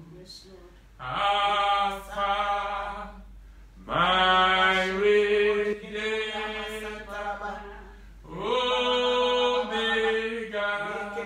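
A man singing solo and unaccompanied in worship, in three long phrases, each sliding up into held, chant-like notes.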